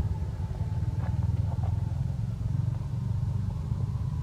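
A small engine running steadily with a low, even pulsing throughout.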